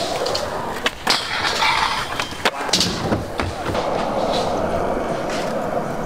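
Skateboard wheels rolling over concrete and ramp surfaces, with a few sharp clacks of boards hitting the ground in the first three seconds, then a steady roll.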